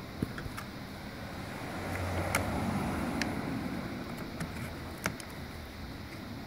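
Scattered small clicks and knocks of plastic instrument-cluster parts being worked apart by hand, over a low rumble that swells in the middle.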